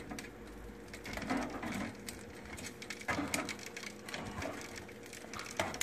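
Light clicks, taps and scrapes of chicken wings being handled and turned on a metal air-fryer basket, with a few louder knocks, over a steady low appliance hum.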